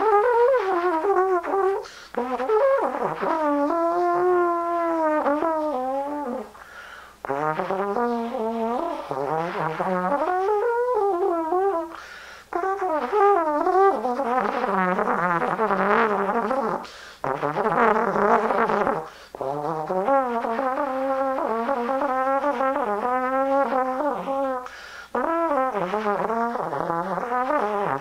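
Solo trombone playing a free microtonal improvisation: phrases of wavering, sliding pitch, broken by short pauses every few seconds.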